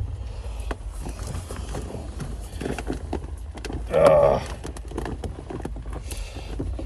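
Scattered knocks, clicks and rattles of hands and tools working inside a car door's panel cavity to free the door check strap. A louder, briefly pitched strained sound comes about four seconds in.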